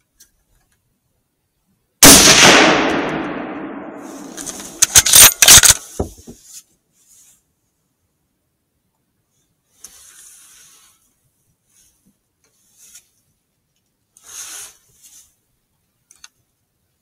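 A single rifle shot, sudden and very loud, its report fading over about two seconds, aimed at a wild boar. A couple of seconds later comes a quick run of sharp mechanical clacks from the rifle being worked, followed by a few faint brief rustles.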